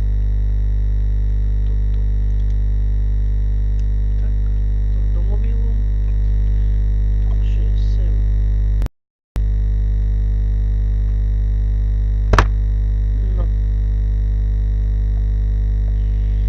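Loud, steady electrical buzzing hum that never changes in pitch, with faint handling noises and one sharp click about twelve seconds in. The sound drops out completely for about half a second around nine seconds in.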